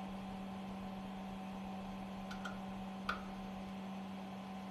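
A steady low hum with a few light metal clicks, twice a little after two seconds in and once, loudest, about three seconds in: an Allen key working the cover screws of a puncture valve.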